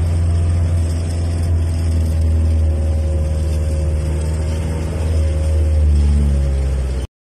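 Jeepney's diesel engine running steadily as it drives, a loud low rumble heard from inside the cabin. The sound cuts off suddenly near the end.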